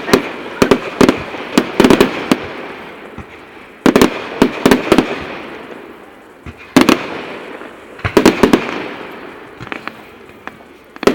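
Fireworks display: aerial shells bursting in rapid volleys of sharp bangs, each volley trailing off in a fading rumble before the next comes a second or two later.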